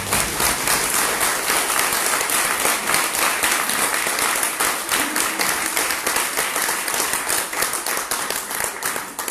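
An audience applauding: a steady mass of many hands clapping.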